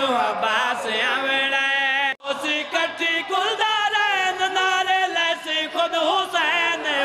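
A man's voice chanting a Punjabi qasida in a wavering, melismatic line. There is a sudden momentary break about two seconds in.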